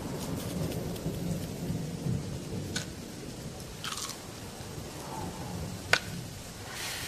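Rain falling with a low rumble of thunder, a few scattered crackling ticks, and one sharp click about six seconds in.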